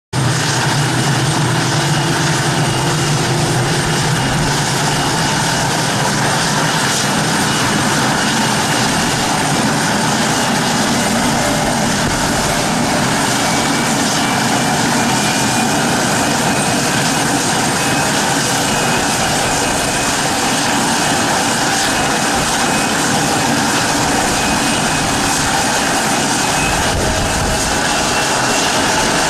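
Kawasaki C-2 military transport's two General Electric CF6 turbofan engines running as the aircraft taxis: a loud, steady jet rush with a faint high whine that rises slightly in pitch near the end.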